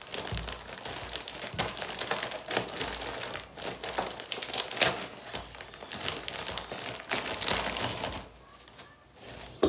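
Plastic wrapping of a pack of newborn-size disposable diapers crinkling and rustling as diapers are taken out. The crackling runs in irregular bursts and dies down about eight seconds in.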